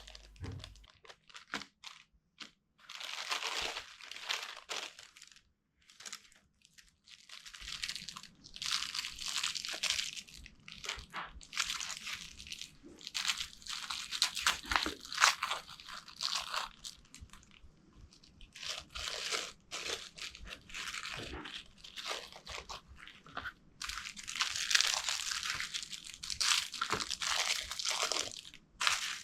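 Plastic packaging crinkling and rustling in irregular bursts as the parts of a triple clamp bearing kit, its bearings and seals, are unwrapped and handled.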